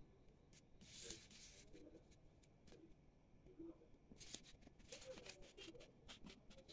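Faint rustling and creasing of a sheet of paper being folded by hand: a brief swish about a second in, another a little after four seconds, and a few light ticks of fingers pressing the folds near the end.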